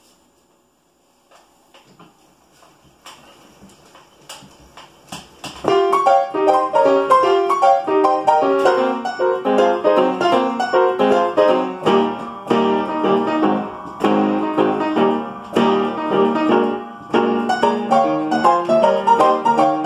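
Upright piano played by a Pianola push-up piano player from a paper piano roll, its felt-tipped fingers pressing the keys. A few faint clicks and knocks come first, then about five and a half seconds in the piano starts playing a brisk, loud tune.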